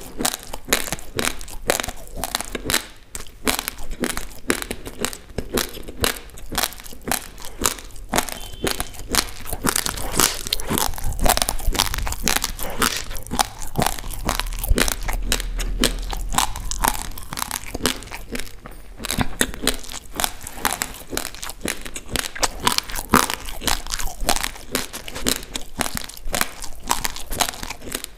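Close-miked crunching of dry, uncooked basmati rice being chewed: a fast, irregular run of sharp crunches.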